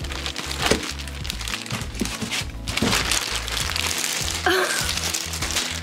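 Clear plastic packaging bag crinkling and rustling as it is pulled off a boxed toy kitchen, over background music with a steady bass line.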